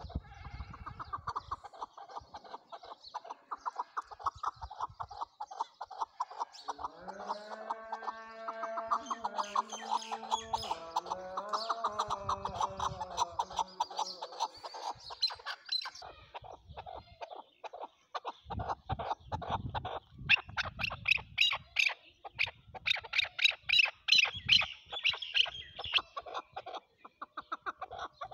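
Chukar partridge calling: a long run of rapid clucking 'chuk' notes, growing louder and higher from about 20 seconds in. Underneath, from about 7 to 14 seconds in, a held, wavering pitched tone.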